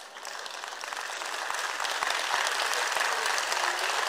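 Audience clapping, swelling over the first two seconds and then holding steady.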